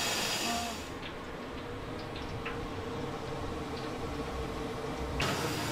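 Quiet street ambience: a low, steady rumble with a few faint ticks. A brief stretch of stall hiss and voices comes at the very start, and the hiss returns near the end.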